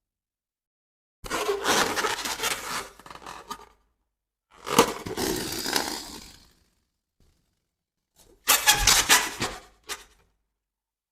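Balloons being popped in three short takes, each about two seconds of sharp pops and crackling, separated by silence.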